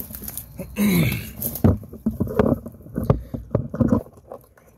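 Footsteps crunching and scuffing over rubble and litter, with irregular knocks from clambering, and a short wordless vocal sound about a second in. The crunching stops about four seconds in.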